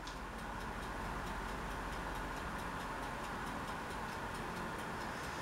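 A steady, rapid ticking, about four ticks a second, over a low hum and hiss.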